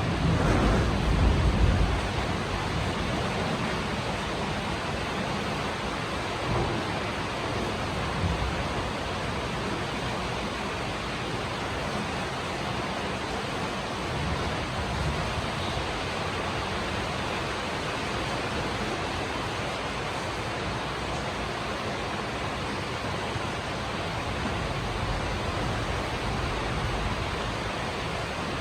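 Heavy rain falling steadily, a dense even hiss. A low rumble dies away in the first two seconds.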